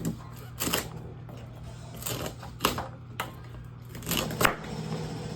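Several sharp knocks and clatters, irregularly spaced, from items being handled on a kitchen counter, over a steady low hum.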